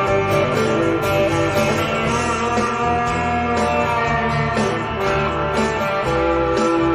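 Intro music played by guitars, with a steady bass line underneath.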